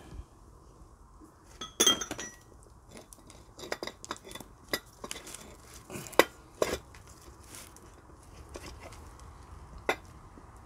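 Steel parts of a Citroën 2CV front axle arm and hub clinking and knocking together as they are handled on a steel block during kingpin removal. Sharp clinks come at irregular intervals; the loudest, about two seconds in, rings briefly.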